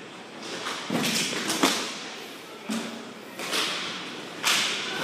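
Inline hockey play on a rink floor: several hissing scrapes from skate wheels and sticks, with a sharp crack of stick or puck about a second and a half in.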